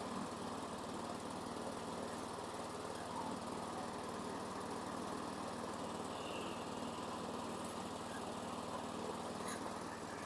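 2013 Craftsman self-propelled push mower's small single-cylinder engine running steadily at a slightly low idle, having just started after a long time sitting.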